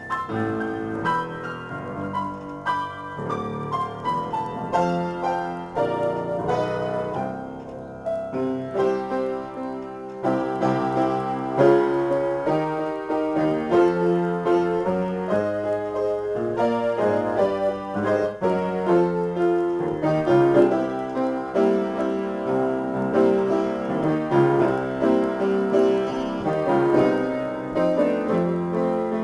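Solo upright piano played as an improvisation, with many notes and chords. It is softer for the first ten seconds or so, then louder and fuller.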